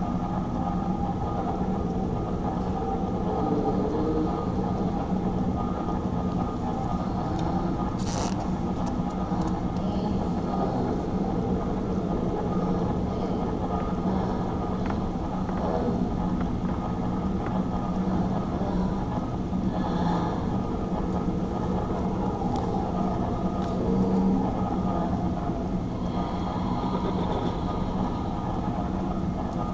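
Steady low droning rumble with several held tones, and a sharp click about eight seconds in.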